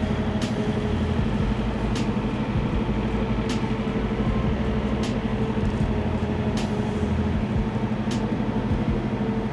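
Semi truck's diesel engine running steadily at low speed while the rig reverses, a constant drone heard from inside the cab, with a short sharp click about every second and a half.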